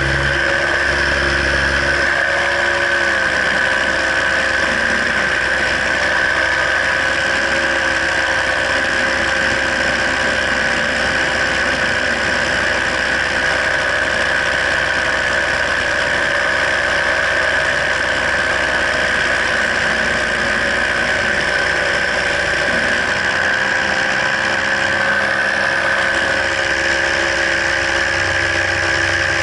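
Paramotor engine and propeller running steadily in flight, a loud, even drone. Its pitch eases down slightly about two to three seconds in, then holds.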